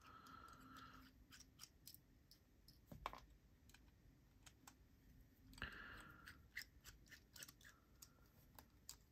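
Near silence with faint small metallic clicks and scrapes of a bit driver turning out the pocket-clip screws of a Vosteed Valkyrie folding knife, with one slightly louder click about three seconds in.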